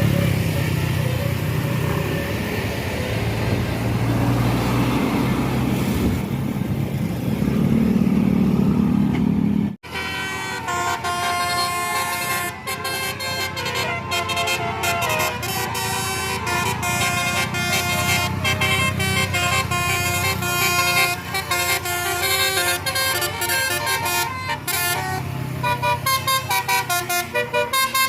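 Bus engine and road traffic noise for about ten seconds, then, after a sudden cut, a tour bus's multi-tone telolet (basuri) air horn playing a long tune of changing notes, turning into rapid short toots near the end.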